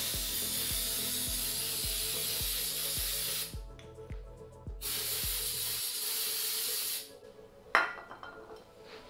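Aerosol brake cleaner sprayed onto the dirt bike's engine cases around the oil drain plug: two long, even hisses, the first about three seconds long, the second about two after a short pause. A single sharp knock follows near the end.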